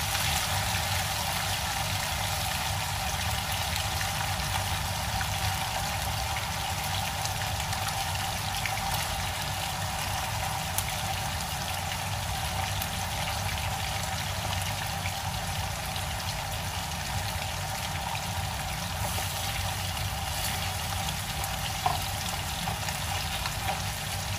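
Fish head pieces shallow-frying in hot oil in a pan: a steady sizzle. A couple of faint light taps are heard, around the middle and near the end.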